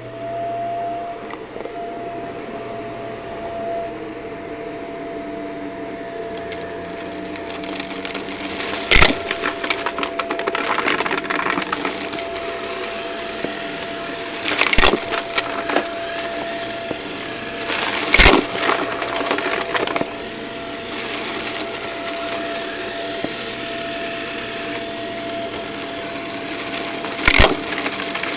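Vacuum cleaner running with a steady whine while picking up a dry crunchy test mess, the debris crackling and rattling as it is sucked in, loudest in four bursts.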